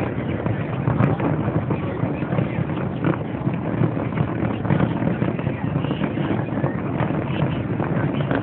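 Fireworks show booming and crackling in rapid, continuous succession, many shells going off at once.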